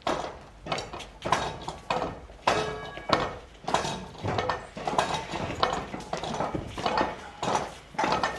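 Irregular clatter of hard objects being handled and struck: a quick run of knocks and clinks.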